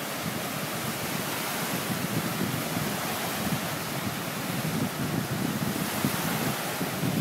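Wind buffeting the microphone in gusts over the wash of small waves breaking on a sandy lake shore.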